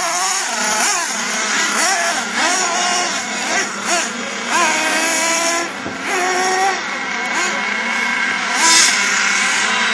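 Radio-controlled race trucks' small high-revving engines whining up and down in pitch as they accelerate and back off, more than one at once.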